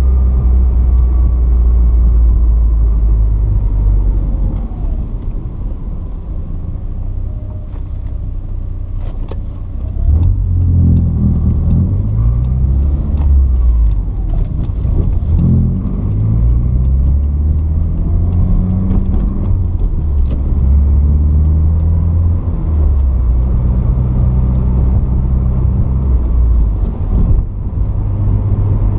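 Porsche 944's 2.5-litre four-cylinder engine running on the move, quieter for a few seconds, then pulling hard with its pitch climbing and dropping back several times as it accelerates up through the gears of the five-speed manual gearbox.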